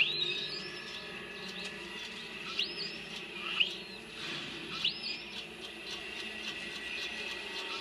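Short, high chirping calls, five or so, each sweeping upward in pitch and spaced one to two seconds apart, over a steady background.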